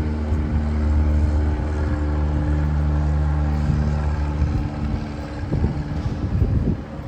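A steady engine drone holding one pitch, fading after about five seconds, with uneven low rumbling near the end.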